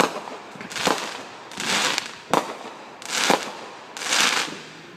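Fireworks going off in a steady run, about one a second: sharp bangs alternating with longer crackling hisses.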